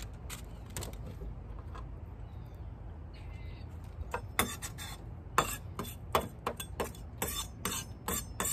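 Aluminium foil being peeled off a baked sweet potato and crumpled: a run of sharp, irregular crinkles starting about halfway through, with light knife and cutting-board clatter.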